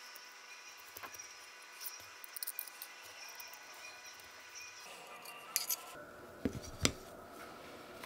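Scattered light clicks and taps of carbon-fibre drone frame parts and small hardware being handled and set down on a desk mat. The sharpest knock comes about seven seconds in.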